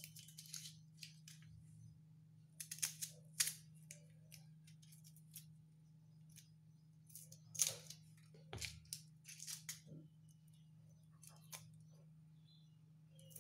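Dry, papery skins being peeled off red onions by hand and with a small knife: scattered short, crisp rustles and crackles, with a faint steady hum beneath.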